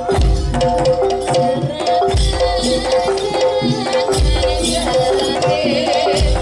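Live campursari music for jaranan: busy kendang hand-drum strokes and a deep drum hit about every two seconds, under steady gamelan-style melodic tones.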